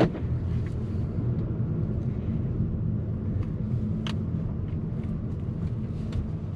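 2021 Volkswagen Jetta GLI's turbocharged 2.0-litre four-cylinder engine running in eco mode while the car drives, a steady low hum mixed with road noise heard from inside the cabin. A sharp click comes at the very start.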